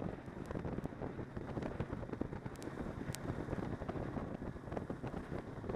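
Snowmobile riding along a snow trail at speed, its engine droning steadily under heavy wind buffeting on the microphone.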